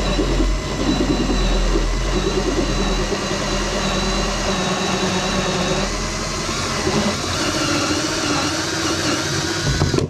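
DeWalt cordless drill running a step bit through the plastic hull of a kayak, a steady motor whine with the bit cutting, widening a hole little by little. It runs without a break and stops at the end.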